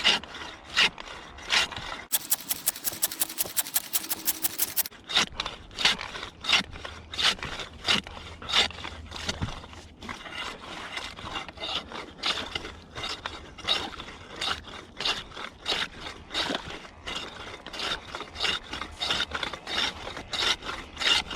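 Homemade ice saw cutting through about ten inches of ice in steady rasping back-and-forth strokes, roughly two to three a second, while the cut is turned. For about three seconds near the start there is a run of much faster, even ticks.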